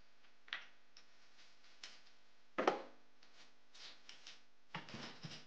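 Metal hand tools, a torque wrench and spark plug socket, clinking and knocking as they are handled and set down: a few light clicks, a louder clatter a little past halfway, and a quick run of knocks near the end.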